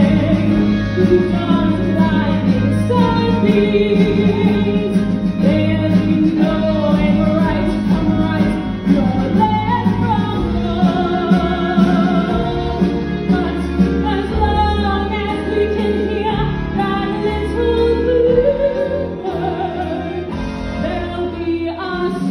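A small live band with drums, keyboard and guitar playing, with a woman singing over it in long, bending notes.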